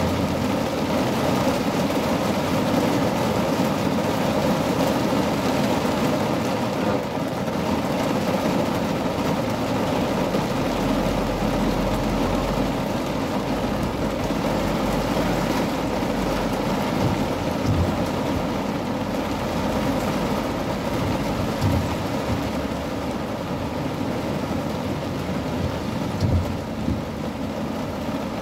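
Heavy rain drumming steadily on a car's roof and windshield, heard from inside the cabin, with a few faint low knocks in the second half.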